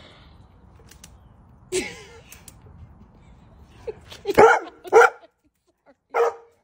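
A large dog barking in excitement: one softer bark about two seconds in, then three loud barks, two close together and a third a second later. The dog is eager for the release to jump into the pool after a teasing "ready, set".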